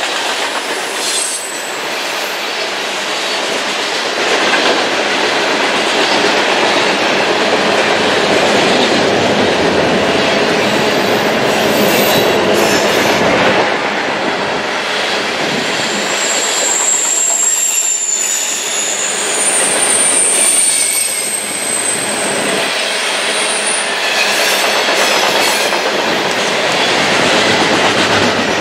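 Open-top hopper cars of a Norfolk Southern freight train rolling past on curved track: a steady rumble and clatter of wheels over the rails. High-pitched wheel squeal comes and goes over it, strongest a little past halfway.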